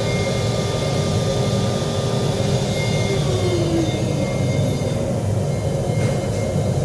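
Steady mechanical drone with a low hum and a few faint whining tones, and a brief tone gliding down about three seconds in.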